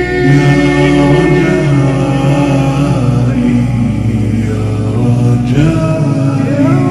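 Nasheed: layered male voices chanting long held notes in harmony, gliding slowly from one chord to the next, with no beat or percussion.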